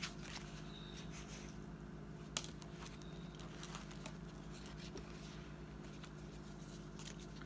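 Quiet handling of paper pages in a ring-bound personal planner, with a few light clicks and soft rustling as the pages are turned, over a steady low hum.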